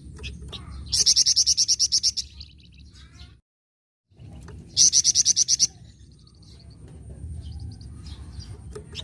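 Flamboyan bird singing in a vigorous 'nyecret' style: rapid rattling trills of about a dozen sharp high notes each, one about a second in and another about five seconds in, with softer chirps between. The sound cuts out briefly in the middle.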